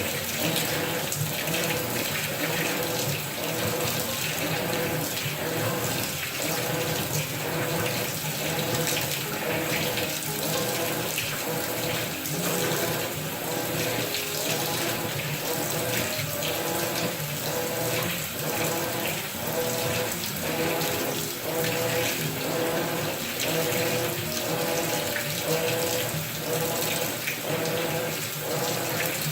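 Water rushing steadily in a Maytag top-load washing machine's tub.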